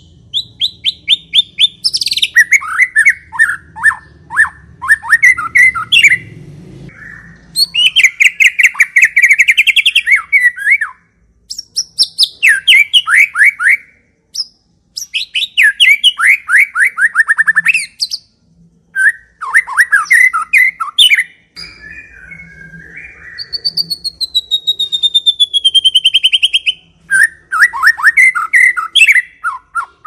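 White-rumped shama (murai batu) singing in a long series of rapid trilled, stuttering phrases, each a few seconds long with short pauses between them. Near the end one long whistle glides steadily down in pitch.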